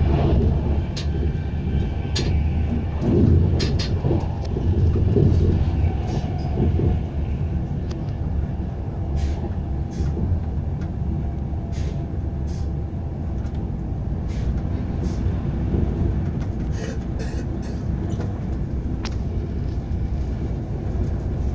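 Passenger train running at speed, heard from inside the carriage: a steady low rumble, louder in the first few seconds, with scattered short clicks and knocks.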